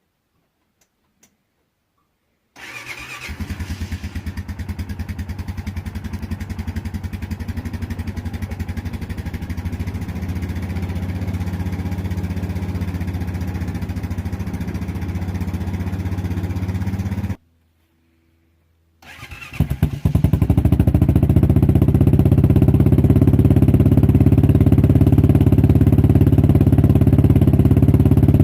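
Honda Foreman 500 ATV's single-cylinder engine through a Big Gun Evo aftermarket exhaust, starting a couple of seconds in and idling steadily with rapid exhaust pulses. Past the middle the sound cuts off abruptly, and after a short silence the engine is heard running again, louder, until the end.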